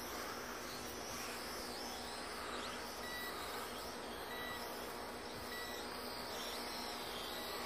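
Holy Stone HS230 racing quadcopter's motors and propellers buzzing at a distance, the whine wavering up and down in pitch as the throttle changes. Three faint short beeps sound midway, about a second and a quarter apart.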